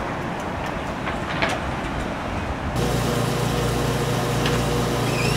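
Street traffic ambience with a few light clicks, then about three seconds in it cuts abruptly to a steady low hum.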